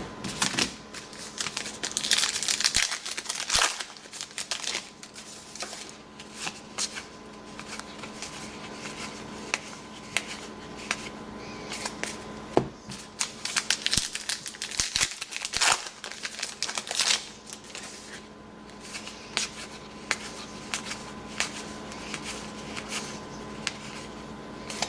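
Trading card pack wrappers from a 2012 Topps WWE Heritage box crinkling and tearing as packs are opened, with the cards inside being handled and flipped: irregular rustles and sharp clicks throughout.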